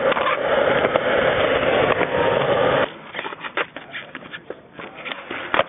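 Skateboard wheels rolling loud and gritty on concrete, cutting off abruptly about three seconds in. After that, quieter board noise with scattered clicks and a sharp clack near the end.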